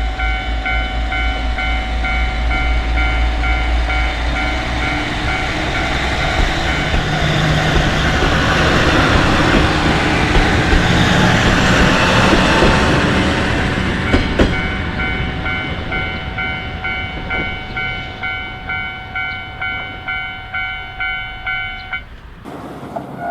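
Japanese railroad-crossing warning bell ringing its repeated "kan-kan" while a local diesel railcar passes over the crossing. The rumble and clatter of the train swell and peak in the middle. The bell keeps pulsing after the train has gone and stops abruptly about 22 seconds in.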